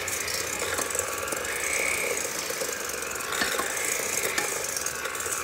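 Cuisinart electric hand mixer running steadily, its beaters turning in a stainless steel bowl as they cream butter with brown and white sugar, with a few short clicks along the way.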